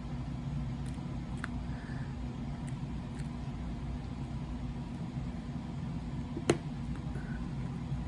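Steady low hum with a few faint light ticks and one sharp click about six and a half seconds in.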